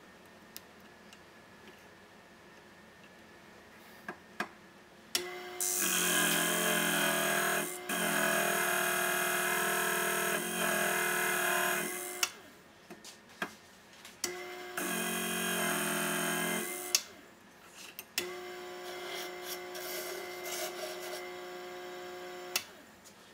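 Electric piston ring end-gap grinder switched on with a click and run three times, a steady motor whine with a grinding hiss as the ring's end is ground against the abrasive wheel; the first run lasts about seven seconds and the last is quieter. The ring's end gap is being ground open to reach the minimum gap at the top of ring travel.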